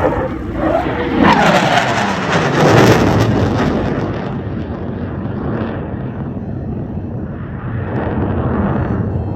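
Eurofighter Typhoon jet flying past, its twin turbofan engines loud: the pitch drops steeply about a second in as it goes by, then settles into a lower rumble as it moves away.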